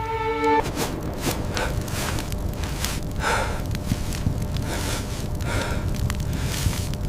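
A person breathing hard, with a few gasping breaths over a steady low rumble; a held tone stops about half a second in.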